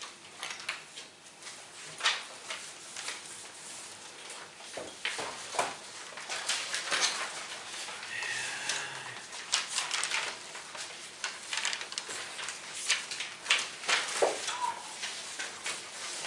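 Paper handling around a table: sheets rustling and pages being turned, with irregular small clicks and knocks.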